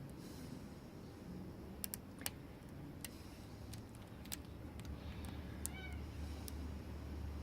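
Lock pick and tension wrench working a padlock's pins: scattered small metallic clicks and ticks. A short meow about six seconds in.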